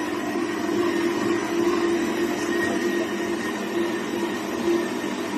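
Electric stand mixer running steadily, its dough hooks turning a bread dough in a stainless steel bowl.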